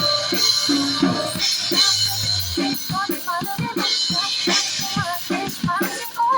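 Music with a steady drum-kit beat of bass drum and snare; short curved melodic notes come in about halfway through.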